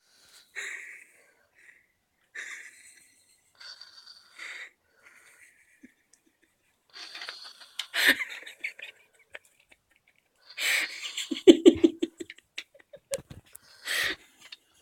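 A person snoring in short, breathy, high-pitched breaths a second or more apart, growing denser and louder after about seven seconds, with a louder, lower-pitched snore about eleven seconds in.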